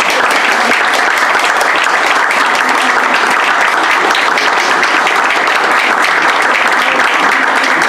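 Audience applauding: dense, steady clapping from many people, loud.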